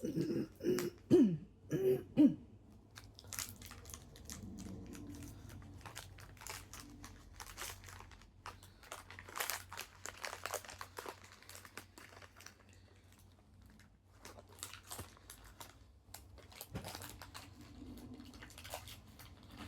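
Plastic wrapper of a Nature Valley Crunchy Peanut Butter granola bar crinkling, and the hard oat bar crunching and crumbling, as many small irregular crackles. A few short rising-and-falling voice-like sounds come in the first couple of seconds.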